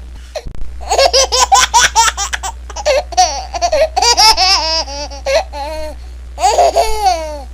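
A baby laughing: a run of quick, rapid giggles, then high squealing laughs that bend up and down in pitch, a short pause, and one more squeal near the end.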